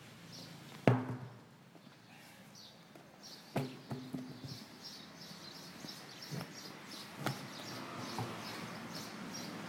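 A large tractor tyre flipped and dropped flat onto asphalt, landing with a heavy thud about a second in, then a second thud and a few lighter knocks as it is handled again. Quick high chirps repeat steadily in the background from a few seconds in.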